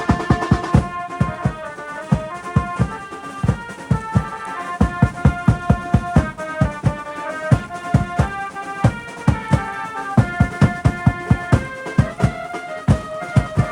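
Instrumental garba dance music: a sustained keyboard-like melody moving from note to note over a fast, steady drum beat.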